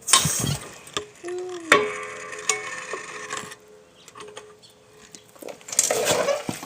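Hydraulic floor jack being let down to lower a car onto its wheels: a clatter at the start, a steady sound for a couple of seconds as it descends, and another clatter near the end.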